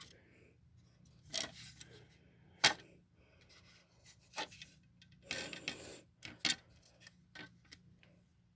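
Handling noise from a plastic smoke detector and an aerosol test-spray can: scattered sharp clicks and knocks, the loudest just before three seconds in, and a short hissy rustle about five and a half seconds in. No alarm sounds.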